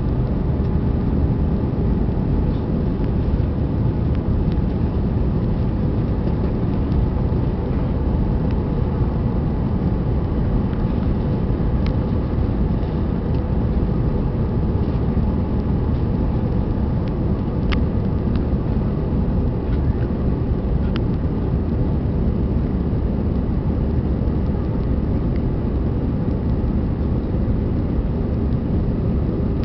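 Steady cabin noise inside an Airbus A320 airliner in flight: the hum of the jet engines and the rush of air past the fuselage, unchanging throughout. A few faint clicks come through about halfway in.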